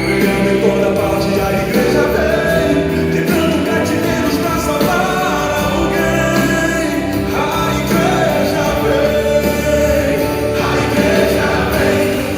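Contemporary Brazilian gospel song playing: singing over full backing music.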